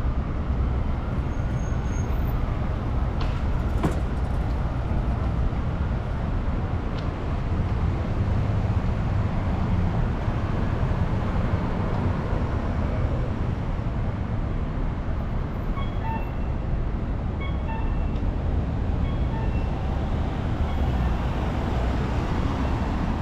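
Steady low rumble of city street traffic, with a single sharp click about four seconds in.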